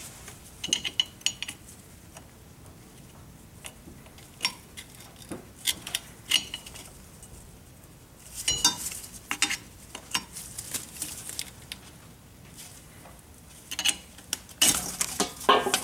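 Screwdriver prying the rubber dust boot off a drum-brake wheel cylinder: scattered metallic clicks, scrapes and clinks of the blade against the cylinder and brake hardware, in bunches with short pauses between.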